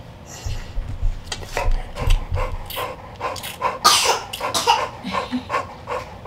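Cane Corso in labor panting heavily and rhythmically, about three breaths a second, with one louder huff about four seconds in. A few low bumps sound in the first couple of seconds.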